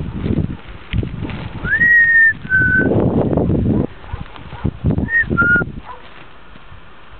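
A person whistles twice to a lunging horse, about three seconds apart, each a short two-note whistle stepping down in pitch, the first opening with a quick rise. Under it are the low thuds of the horse's hooves trotting on grass, which die away near the end as the horse slows.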